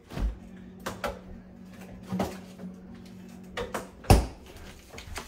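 Knocks and clunks of kitchen doors or drawers being opened and shut, with a steady low hum from about the first knock until just before the last. A loud thud comes just after four seconds in.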